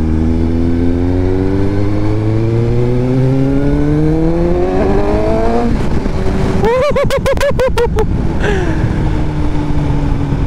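Suzuki GSX-S750 inline-four engine pulling hard under acceleration, its pitch rising steadily for about five and a half seconds before dropping off. About seven seconds in there is a second-long flutter of rapid pulses, then the engine settles into steady running with its pitch slowly falling.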